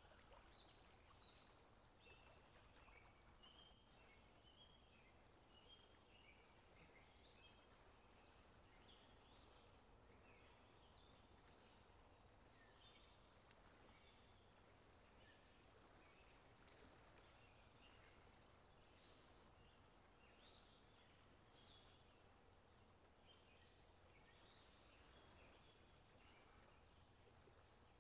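Faint birdsong: many short, scattered chirps at varied pitches from several small birds, over a low, steady background rumble.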